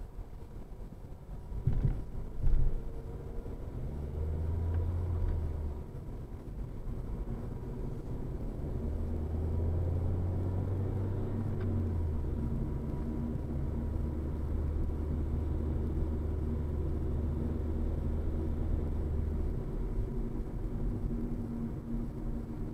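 Road noise inside a car cruising on an interstate highway: a steady low rumble of tyres and engine that swells and eases as the car goes. About two seconds in come two sharp thumps, the tyres crossing a patched crack in the pavement.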